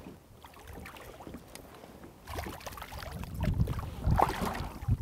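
Water splashing and sloshing against the side of a bass boat as a hooked bass is grabbed at the surface and lifted out by hand. It is fairly quiet at first and grows louder and more uneven about halfway through.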